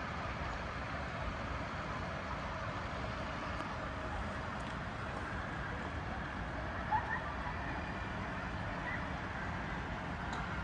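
Steady, distant city traffic hum heard from high above the streets, with one brief, slightly louder sound about seven seconds in.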